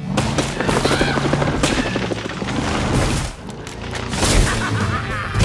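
A rapid-fire string of bangs and crashes, sound effects for about three seconds, then a short lull and a few heavier thumps, with background music underneath.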